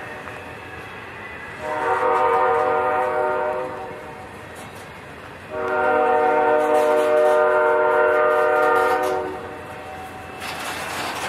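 Diesel locomotive's multi-chime air horn sounding two blasts, a shorter one of about two seconds and then a longer one of about four seconds, over the rumble of freight cars rolling past. A brief rush of noise comes near the end.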